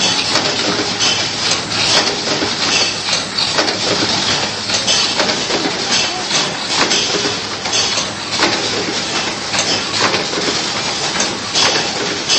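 Automatic biscuit cartoning machine running: a steady mechanical clatter of conveyors and pushers with frequent sharp clicks and knocks over a low hum.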